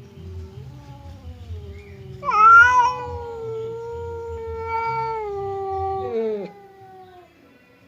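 Domestic cat in a standoff with another cat, growling low, then letting out one long drawn-out yowl about two seconds in. The yowl starts loud, holds its pitch for about four seconds, then drops and tails off.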